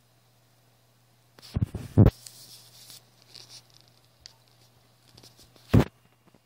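Handling noise: a cluster of knocks and a short rustling scrape about one and a half seconds in, then another single knock near the end, over a steady low hum. No ringtone is playing.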